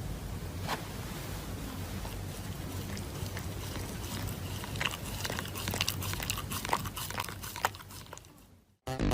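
An animal chewing and crunching food, a run of sharp crunches and clicks over a low steady hum. The crunches come thicker toward the end before fading out.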